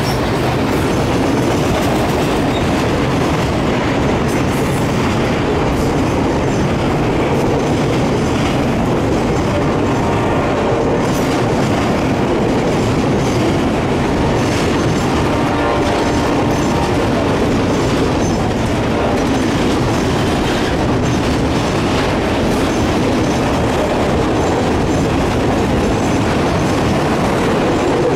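Freight train of autorack cars rolling past close by: a loud, steady rumble of steel wheels on the rails, with clickety-clack as the wheels cross rail joints.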